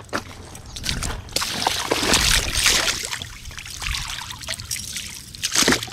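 Crappie and white bass on a metal chain stringer splashing in shallow water, with water pouring and trickling off them as they are dunked and lifted. The splashing is loudest about two seconds in, and there is a sharp splash near the end.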